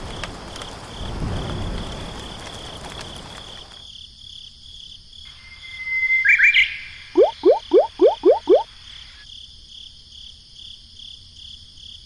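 Rain falling for the first few seconds, then a steady high pulsing trill, with a short chirp about six seconds in and six quick rising animal calls just after it.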